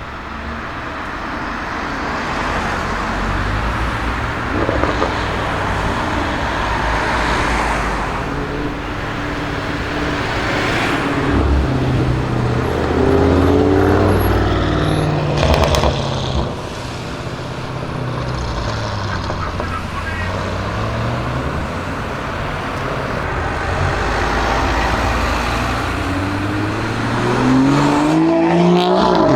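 Audi RS6 Avant C7's twin-turbo V8 with a Milltek exhaust, pulling and easing off in turn. Its note rises and falls several times, with a sharp crack about halfway through and a long rising pull near the end.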